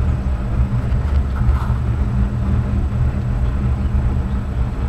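Steady low rumble and hum of a homemade wood gasifier boiler running, with its combustion-air blower going and the wood fire burning in the firebox.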